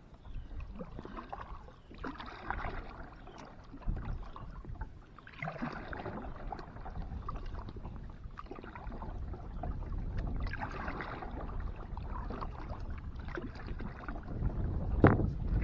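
Kayak paddle strokes splashing in the water every few seconds, over a low rumble, with a louder thump near the end.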